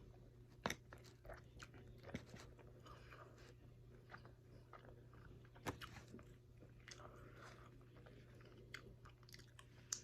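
Faint close-up chewing and biting of chicken wings, with scattered crunches; the sharpest clicks come under a second in and again near six seconds. A faint steady low hum runs underneath.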